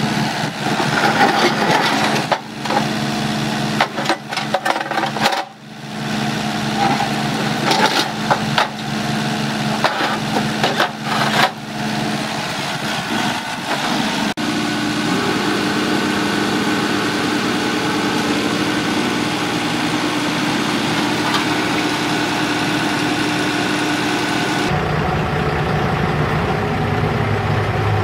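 A diesel engine idles steadily. Through roughly the first twelve seconds, irregular metallic clanks and knocks sound over it.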